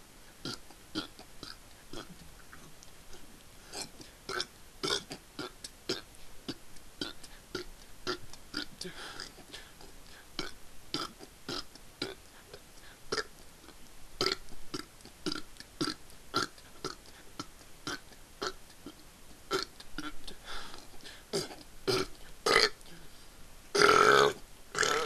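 A man burping over and over in quick succession, short separate burps about two a second, forced out one after another in a speed attempt at the most burps in a minute. Near the end comes one much louder, longer burp lasting about a second.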